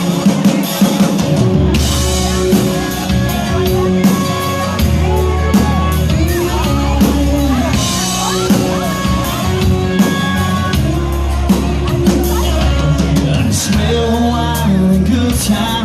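Live rock band playing the instrumental opening of a song, with drums and sustained pitched instruments; a heavy bass comes in about two seconds in.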